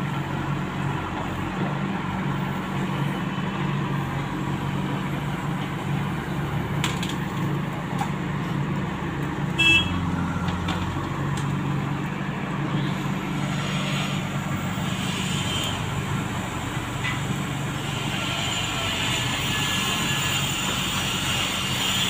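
JCB backhoe loader's diesel engine running steadily as it digs, with a short horn toot about ten seconds in. Near the end another vehicle drives up and grows louder.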